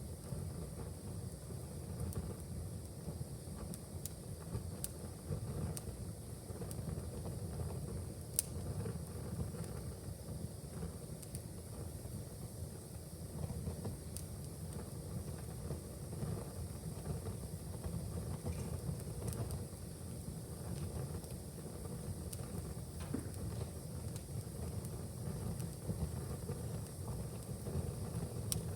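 Wood fire burning in a fireplace: a steady low rumble of flames with scattered crackles and pops, one sharper pop about eight seconds in.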